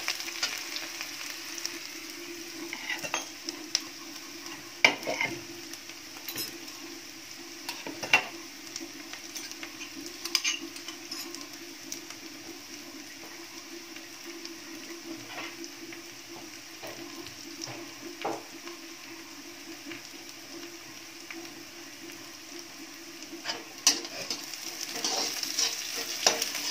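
Chopped onions sizzling in oil in a metal kadhai as they are browned lightly, with a perforated steel ladle scraping and clinking against the pan while they are stirred now and then. The stirring is busiest near the end.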